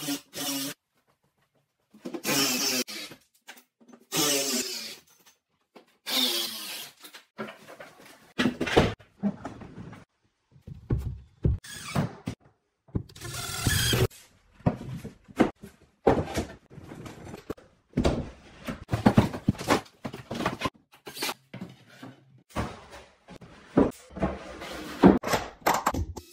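A cordless drill running in short bursts as it bores into cabinet panels, mixed with knocks and clunks of cabinet parts and metal jig hardware being fitted.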